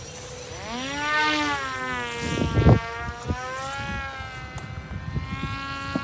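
Small RC flying wing's motor and propeller whining as it throttles up for takeoff and climbs away, the pitch rising steeply about a second in and then wavering as the plane flies. A brief loud low thump about two and a half seconds in.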